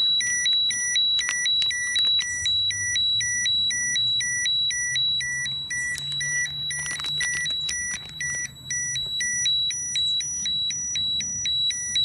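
Ecotest Terra-P dosimeter alarming with a rapid two-tone beeping that switches back and forth between a high and a low tone. It is set off by the radiation from a 0.9-microcurie americium-241 source placed right on top of it.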